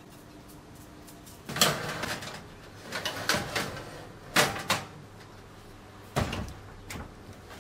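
Metal baking tray clattering and knocking as it is slid onto the oven's rack runners, then the oven door shutting with a thud about six seconds in.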